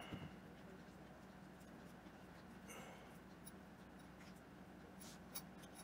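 Faint scraping with a few light clicks from a small flathead screwdriver tip working between a side mirror's rubber edge and its glass, prying the glass out of the chrome housing.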